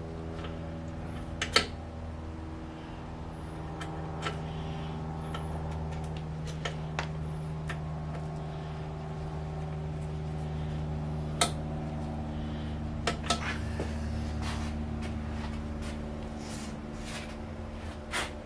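Hand tools and metal parts clinking in a car's engine bay as a mechanic works: a handful of sharp clinks, the loudest about a second and a half in and a quick pair about two-thirds through, over a steady low hum.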